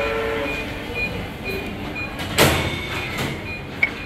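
Busy cafeteria serving-line noise: a short high beep repeating about twice a second over background chatter, and a loud clatter of metal or crockery about two and a half seconds in.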